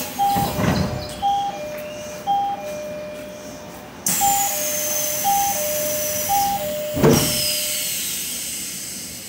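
Train door chime, a high note then a lower, longer note, sounded three times and then repeated. A sudden hiss comes in about four seconds in, and the sliding doors shut with a thud about seven seconds in.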